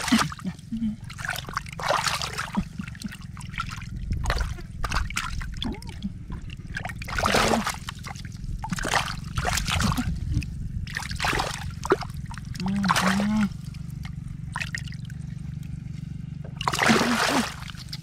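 Hands splashing and sloshing in a small mud-filled hole of water, groping in the mud for a hidden fish, in irregular bursts every second or two over a steady low hum.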